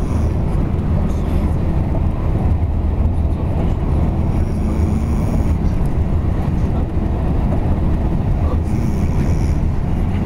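Steady low drone of a moving coach bus, engine and road noise heard from inside the cabin.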